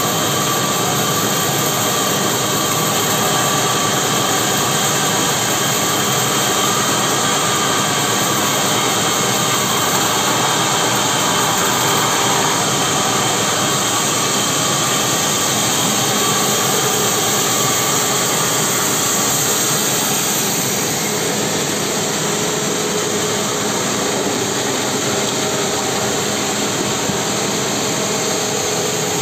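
Sawmill saw running steadily while cutting through a large mahogany log. The noise eases slightly about two-thirds of the way through.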